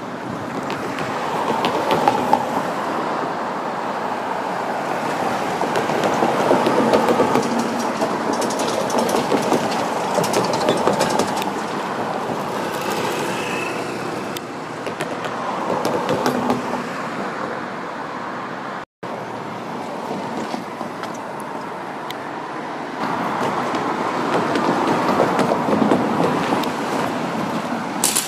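Train running on the line: a steady rolling rumble of wheels on rail that swells and eases several times, mixed with road traffic noise.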